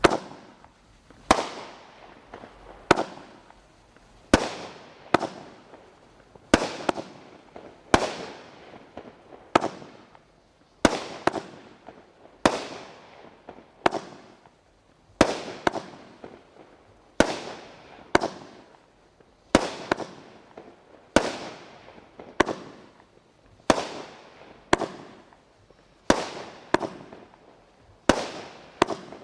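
Consumer firework going off in a long series of sharp bangs, about one a second, each trailed by a short fading hiss.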